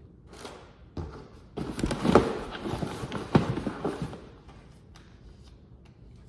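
Rustling and clattering of a shipping box and its packing being rummaged through by hand, with a string of knocks, the two loudest a little after two and three seconds in.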